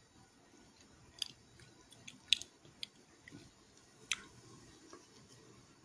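A handful of faint, short clicks and smacks close to the microphone, scattered irregularly, the loudest a little over two seconds in.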